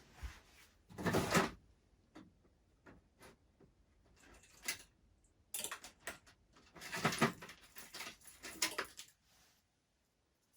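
Intermittent handling noises: several short rustles and clatters with quiet gaps between, as of rummaging through a drawer or box of parts for a cable.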